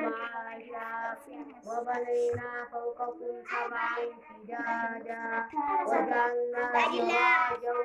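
A child chanting Quran recitation in a melodic style, long held notes in phrases separated by short pauses.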